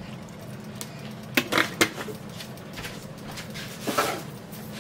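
Thick tomato pasta sauce plopping from a jar into a frying pan of browned ground beef, with a few short knocks and splats, the loudest near the end, over a steady low hum.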